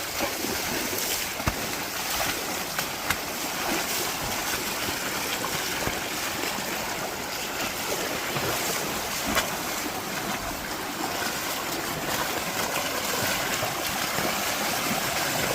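Floodwater running steadily, a constant rushing hiss of moving water, with a few light clicks.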